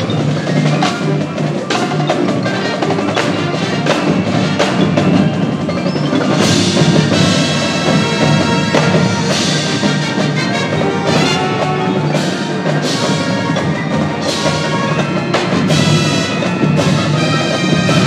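High school marching band playing its field show, with the front ensemble's marimbas and other mallet percussion prominent: a busy run of struck notes over sustained band tones.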